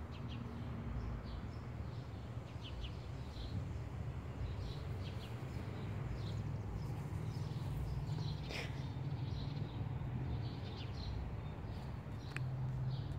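Scattered short bird chirps over a steady low hum, with one sharper falling call about eight and a half seconds in.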